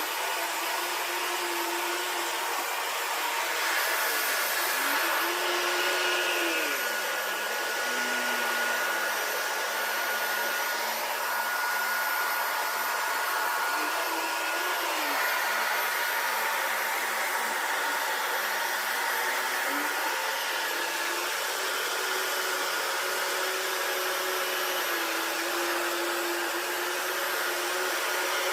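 Mattress vacuum cleaner running steadily with a continuous whir. Its motor tone drops lower and rises back again several times.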